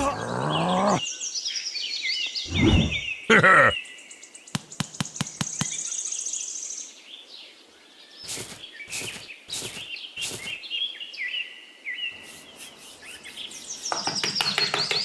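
Bird-like chirping and twittering, with runs of sharp clicks and a couple of louder knocks about three seconds in.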